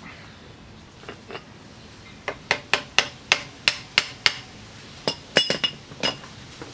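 Steel socket ratchet clicking in a quick run of about eight sharp clicks while backing out the rear axle bolt, then a metallic clank with a brief ring as the ratchet is set down on concrete.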